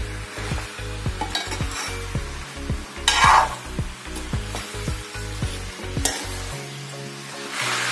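Spatula stirring pumpkin cubes in a metal kadai, scraping and knocking against the pan over a frying sizzle, with the loudest scrape about three seconds in. The pumpkin is being sautéed with spices and jaggery in its own juice.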